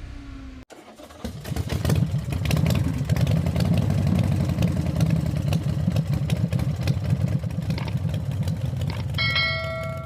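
GMC Sierra V8 engine running steadily after picking up about a second in, the misfire on cylinders 3 and 8 no longer showing. A short electronic chime sounds near the end.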